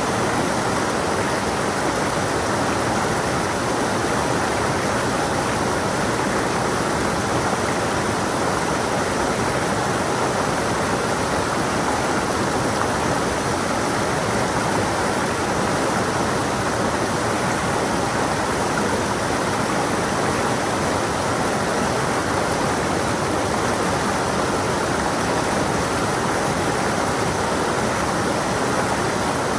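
Creek water rushing and splashing over rocks, a steady even rush without breaks.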